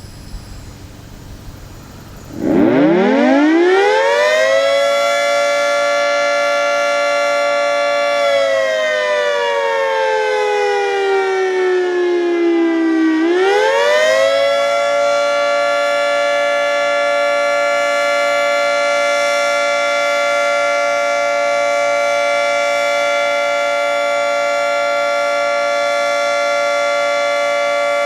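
Federal Signal 3T22 dual-tone electromechanical warning siren winding up about two and a half seconds in for its noon test blast. It holds a steady chord briefly, then winds down in falling pitch. About thirteen seconds in it winds back up for the full alert activation and holds a steady chord.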